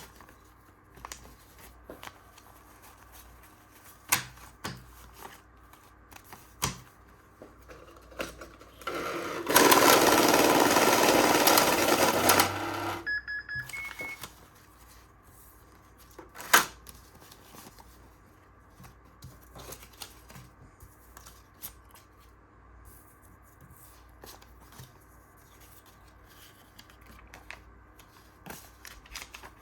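Cash handling with scattered clicks and knocks, broken by an electronic money-counting machine. About ten seconds in, the machine runs with a loud, even rush of noise for about three seconds, then gives a short beep.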